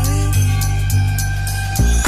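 Background electronic music with a heavy sustained bass line; a drum beat comes back in near the end.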